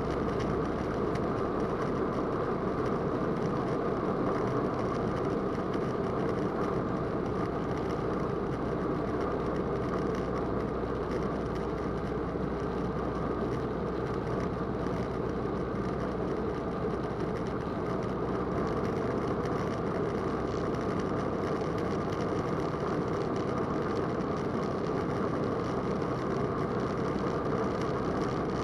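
Roland Aircraft Z602 ultralight's engine and propeller running steadily in cruise flight, an even drone heard from inside the cockpit.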